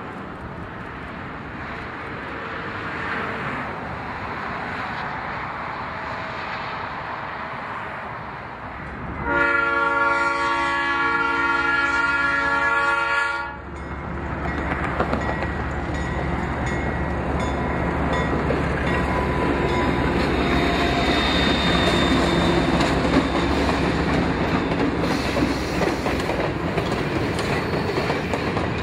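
A train horn sounds one long blast, a chord of several tones, lasting about four seconds and starting about a third of the way in. The train's rumble and the clatter of its wheels on the rails then grow steadily louder as it approaches.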